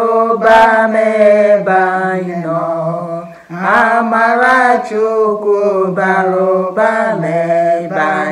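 Two women singing a hymn in Igbo unaccompanied, a slow chant-like melody of held notes with short breaths between phrases.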